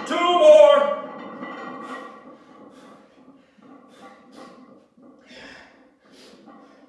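A man gives a loud groaning exhale that falls in pitch in the first second, then breathes hard with a few sharp breaths while catching his breath between reps of a very heavy barbell rack pull.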